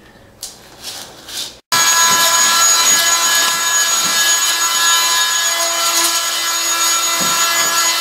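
A few quiet scrapes, then a corded handheld power tool starting abruptly about two seconds in. It runs steadily with a loud buzzing whine as it works on wood and wall material along the bottom of the wall.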